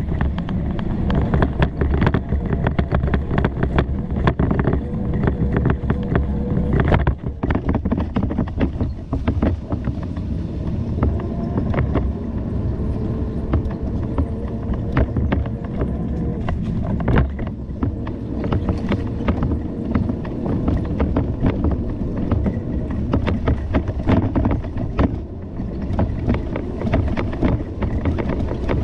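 Bicycle running along a rough canal towpath: a steady rumble of tyres and wind on the microphone, with frequent small knocks and rattles as the bike jolts over the surface.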